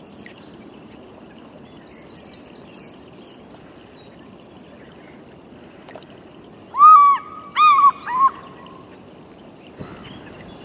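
Outdoor nature ambience recording: a steady background hiss with faint bird chirps. About seven seconds in, a bird gives a loud call of three arched notes in quick succession.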